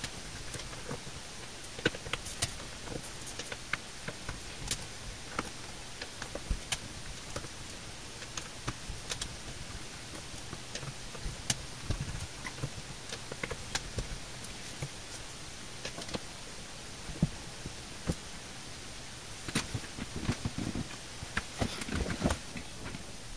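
Scattered small clicks and light scraping of a hand screwdriver turning out the cover screws of a Western Digital WD5000KS hard drive, irregular and bunching up near the end, over a faint steady hiss.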